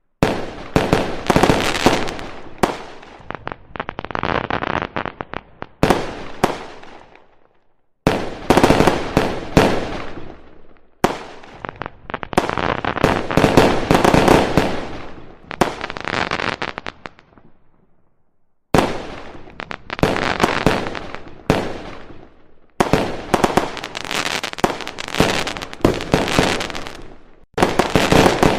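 Fireworks going off in rapid volleys: many sharp bangs of bursting shells run together into dense crackling, with short lulls about eight and eighteen seconds in.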